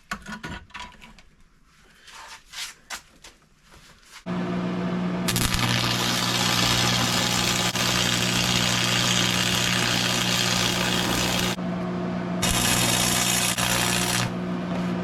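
Light clinks of steel strips being stacked, then about four seconds in a machine starts up with a steady hum and a loud hiss on top. The hiss stops twice briefly while the hum runs on.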